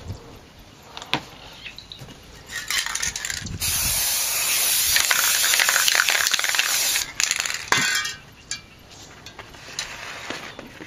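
Aerosol spray paint can spraying onto paper in bursts: a short hiss, then a loud steady hiss of about three seconds, then one brief final burst.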